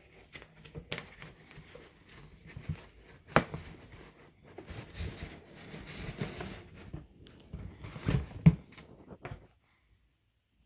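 Packaging being handled and opened by hand: rustling and crinkling with irregular clicks and knocks, the loudest about eight and a half seconds in. The sound cuts off abruptly near the end.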